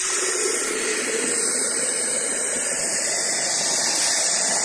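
Tap water running into a plastic bottle, a steady gushing hiss.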